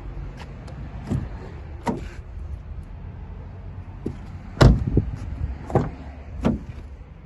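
Car door of a Ford Kuga being opened and shut by hand: a handful of latch clicks and thumps, the loudest a little past halfway, over a low steady rumble.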